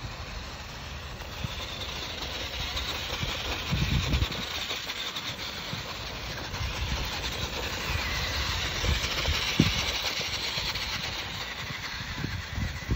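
The small electric motor and plastic gears of a cheap four-wheel-drive RC rock crawler whirring steadily as it drives over sandy ground, with a couple of low thuds about four and ten seconds in.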